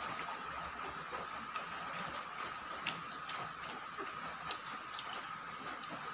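Close-miked mouth sounds of someone chewing a mouthful of bamboo shoot: sharp, irregular wet clicks, one or two a second, over a steady faint high-pitched whine.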